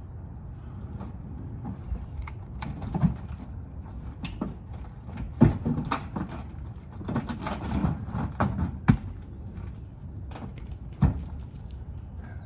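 Cherry log rounds knocking and thudding against each other and the pickup's bed as they are shifted and rolled, with a few heavier thumps spread through and a steady low rumble underneath.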